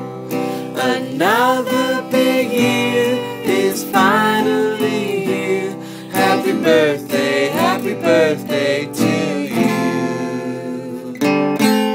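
Background music: an upbeat song with strummed acoustic guitar.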